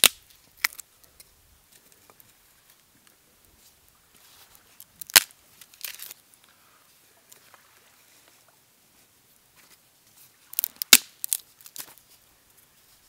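Dry wooden sticks being laid one at a time across a stick frame, giving sharp clicks and snaps as they knock against each other. There is one loud click about five seconds in and a quick run of them about eleven seconds in, with quiet between.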